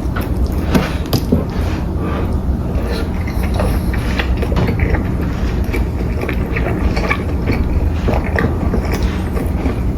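Close-up eating sounds: chewing with many quick, irregular crisp clicks, over a steady low hum.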